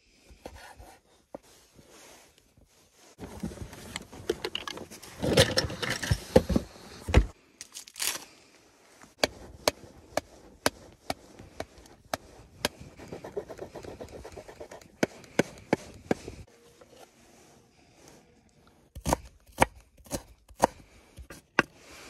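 A knife chopping vegetables on a wooden cutting board in repeated sharp taps, alongside rough scraping of a block of cheese over a metal grater.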